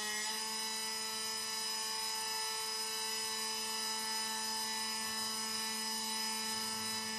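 Bosch test bench running with a steady, even machine whine made of many fixed tones. The whine steps up slightly in pitch just after the start.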